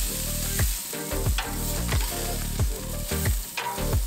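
Sausages sizzling on a gas grill, a steady hiss, under background music with deep bass notes and a steady electronic kick-drum beat.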